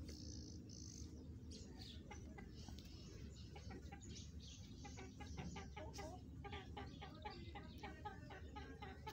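Faint soft calls of a young black francolin: a quick run of short clucking notes, thickest in the second half.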